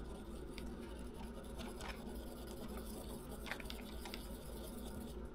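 Paintbrush mixing red paint in a plastic palette well: faint scratchy brushing with a few soft ticks of the brush against the plastic.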